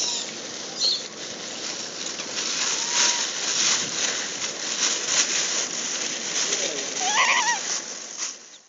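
Outdoor ambience around a rhesus macaque troop: a steady hiss with scattered short rustles and clicks, and a short wavering call about seven seconds in. The sound fades out at the very end.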